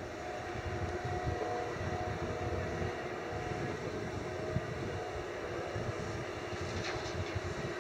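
Hitachi 350 tracked excavator's diesel engine running under load, with a steady whine over its rumble, as it swings a full bucket of sand over the tipper truck.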